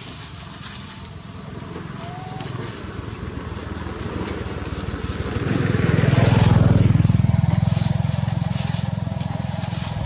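A motor vehicle's engine passing, growing louder to its loudest about six seconds in and then easing off.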